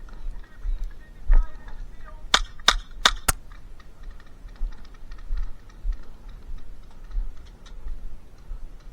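Four sharp airsoft gun shots in quick succession, about a third of a second apart, with dull low knocks of movement before and after.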